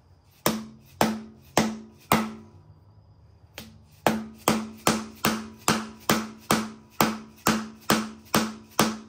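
Mallet strikes on a bolt driven into the bread-packed pilot bearing bore of an LS V8 crankshaft, each blow ringing briefly. Four blows about half a second apart, a pause of about two seconds, then a steady run of about a dozen quicker blows. Each blow forces the packed bread against the pilot bearing to press it out of the crank.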